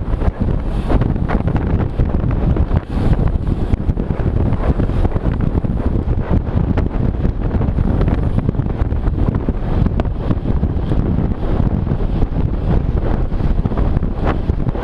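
Wind buffeting the microphone of a moving camera: a steady, loud, low rumble of rushing air, with a few faint ticks over it.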